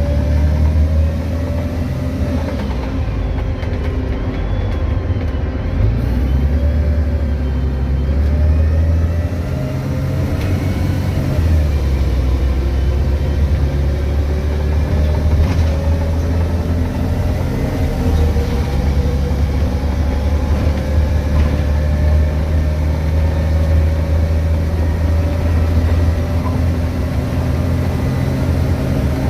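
VDL DB250 double-decker bus's diesel engine rumbling under way, its pitch rising slowly as the bus accelerates and dropping back at gear changes. The electric radiator fan's steady high whine, the 'hoover' sound, runs over it.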